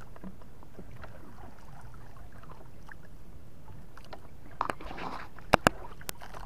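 Steady low water and wind noise around a small wooden outrigger boat at sea. A few sharp knocks and clicks come between about four and six seconds in.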